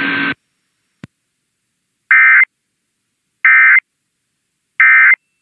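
Emergency Alert System end-of-message signal: three short identical bursts of buzzy SAME digital data tones, the encoded "NNNN" code that closes an EAS alert. Each burst lasts under half a second, and they come about 1.4 seconds apart with silence in between.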